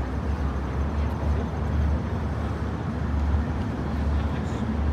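Steady low rumble of city traffic with an even noisy wash over it, without a break.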